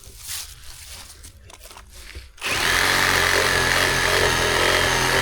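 A power saw cutting through a fallen tree: after a couple of seconds of faint rustling it starts abruptly and runs at a steady, even pitch.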